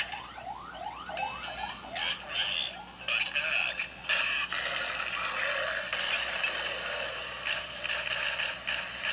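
Electronic arcade shooting-game sound effects: a run of quick rising chirps, several a second, then a dense stretch of electronic gun-fire noise with rapid clicks near the end.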